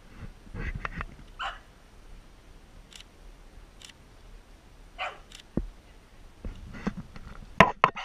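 A dog barks a few times, in short separate barks. Near the end there are several sharp, loud knocks.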